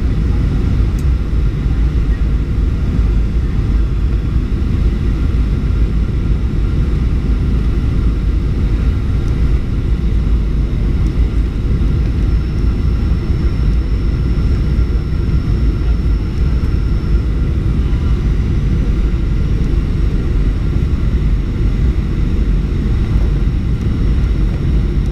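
Cabin noise of a Boeing 737-800 on final approach, heard from a window seat beside the wing: its CFM56 jet engines and the airflow make a steady, deep rush that does not change.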